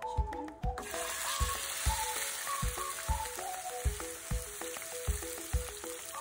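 Raw chicken breast pieces dropped into hot olive oil in a frying pan, starting a steady sizzle suddenly about a second in. Background music with a steady beat plays throughout.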